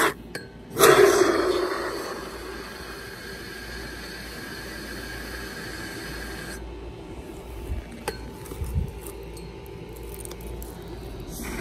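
A can of TITE FOAM Big Gaps insulating foam sealant hissing as it sprays expanding foam through its straw. There is a strong burst about a second in, then a steadier hiss that stops a little past halfway. A few light knocks follow.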